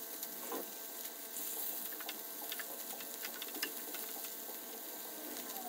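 Beef pieces frying in a little oil in a nonstick pan: a quiet, steady sizzle with small crackles, and light clicks of tongs as the pieces are turned.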